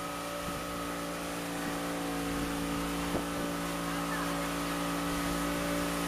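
Motorboat engine running steadily under way: an even drone with a steady hiss over it.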